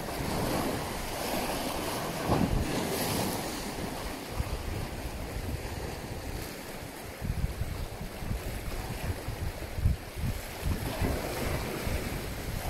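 Wind gusting on the microphone over the wash of sea waves.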